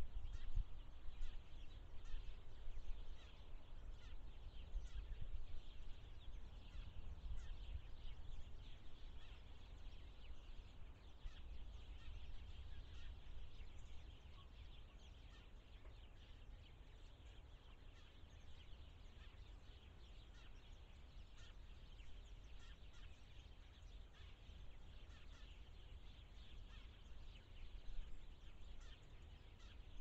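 Outdoor ambience: a low rumble, heavier in the first few seconds and easing off later, under a steady hiss with faint, scattered bird chirps.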